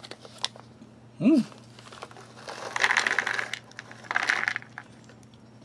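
Foil ration pouch crinkling as dried papaya pieces are shaken out of it onto a plastic tray, in two rustling stretches about a second apart. Just before, about a second in, there is a short vocal hum.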